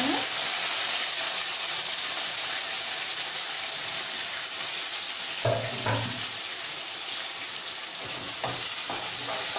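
Chopped onions and curry leaves sizzling in hot oil in an aluminium kadai, a steady frying hiss. A few knocks of the steel spoon against the pan come about halfway through and near the end as the onions are stirred.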